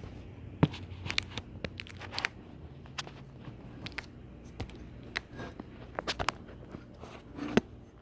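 Emerson Designer 42-inch ceiling fan from the early-to-mid 1980s running with a steady low motor hum. Irregular sharp clicks and taps sound over it, the loudest about half a second in and near the end.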